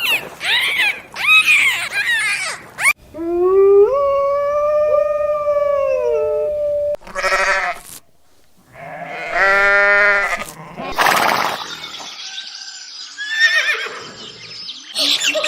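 A string of different farm animal calls, cut one after another. The clearest are a long drawn-out call of about three and a half seconds in the middle and, a little later, a shorter quavering call.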